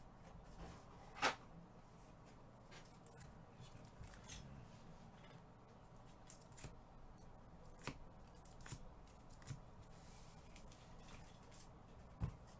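Faint, scattered clicks and rustles of trading-card packs and cards being handled, with one sharper click about a second in.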